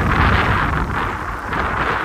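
Gusting wind buffeting the microphone, a loud rushing noise that eases a little near the end.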